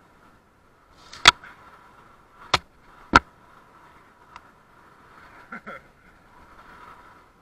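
Sharp knocks and clicks from a bicycle and its camera mount being ridden over a paved path: three loud ones in the first half, a lighter one and a soft double rattle later, over faint steady running noise.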